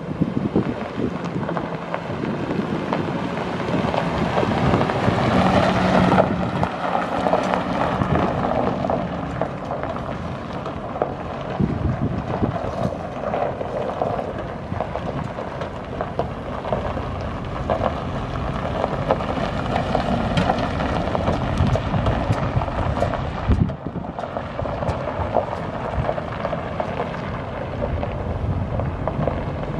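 An engine running steadily, heard as a continuous rumbling noise, with wind buffeting the microphone.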